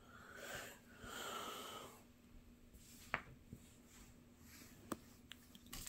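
Faint handling of a cardboard trading-card box and its foil packs: soft rustling in the first two seconds, then two light, sharp clicks, one about three seconds in and one near the end.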